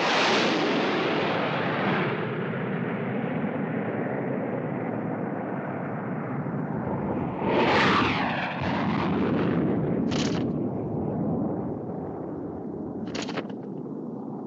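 Cartoon explosion sound effects. A big blast right at the start trails off into a long rumble, a second blast swells up about eight seconds in, and two brief sharp noises follow near 10 and 13 seconds.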